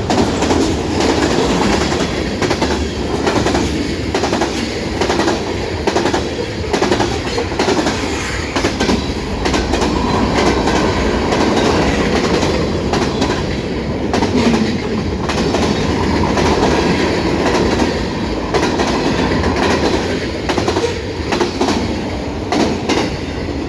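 Freight train cars rolling past: a steady rumble with the clickety-clack of wheels over rail joints.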